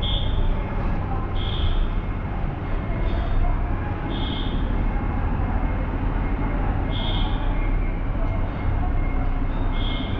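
Road traffic noise with a steady low rumble. A short high beep repeats five times, every two to three seconds.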